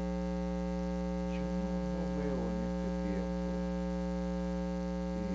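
Steady electrical mains hum, a loud low buzz with many overtones, over the studio audio. Faint voices come through it in the middle.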